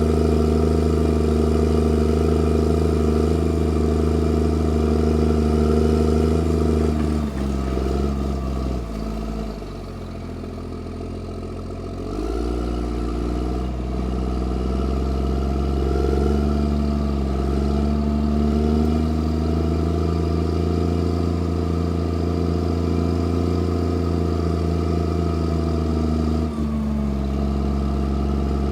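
New Holland motor grader's diesel engine running steadily. The engine speed drops for a few seconds around the middle, then picks back up.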